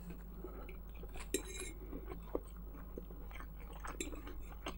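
Close-up sounds of a person chewing a mouthful of casserole, with a metal fork clicking and scraping against a plate several times. The sharpest clink comes about a second in.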